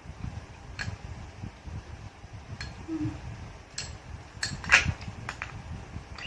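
Eating sounds: low chewing noises throughout, with about seven short sharp clinks of cutlery against a dish. One clink a little under five seconds in is louder than the rest.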